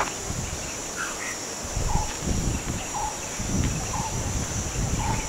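Wild ambience: a steady high insect buzz, with a bird repeating a short call about once a second. Low rumbling noise comes and goes underneath.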